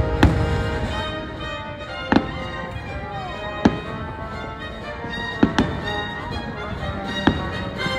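Aerial fireworks bursting with about six sharp, irregularly spaced bangs, two of them close together just past the middle, over sustained orchestral show music.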